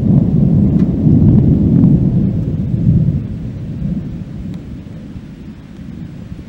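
Thunder rumbling low, strongest for the first three seconds or so and then slowly dying away.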